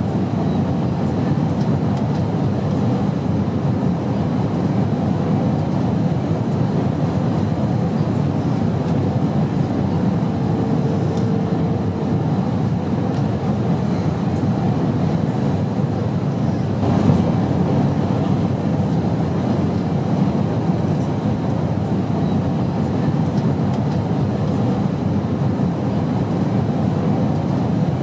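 Steady low drone of airliner cabin noise in flight: engine and airflow rumble with no changes in pitch. A faint hum comes and goes about ten seconds in, and there is a brief soft bump about seventeen seconds in.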